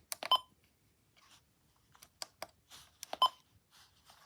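Keypad beeps from a Midland weather radio as its buttons are pressed to step through the alert settings. Two short, high beeps sound, one near the start and one about three seconds in, with faint button clicks between.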